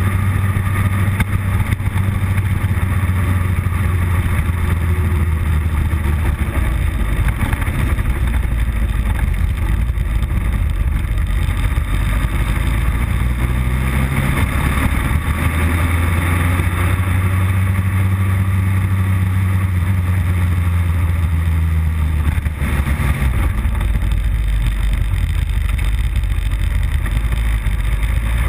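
Motorcycle engine running on the open road with wind rushing over the microphone; its low note drops and climbs a few times as the throttle and gears change.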